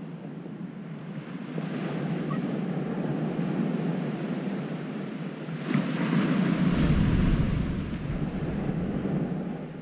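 Ocean surf washing onto a sandy beach, with wind rumbling on the microphone. The sound swells about a second and a half in, and again more loudly about six seconds in, with a deep rumble.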